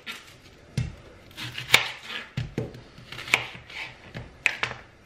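Kitchen knife cutting an onion on a cutting board: the blade slices through the onion and hits the board in several sharp, irregularly spaced knocks.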